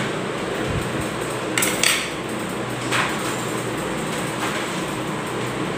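A few light clinks of a small metal pan against a glass bowl, the loudest pair about two seconds in, as hot oil is poured from it into rice flour. A steady hiss runs underneath.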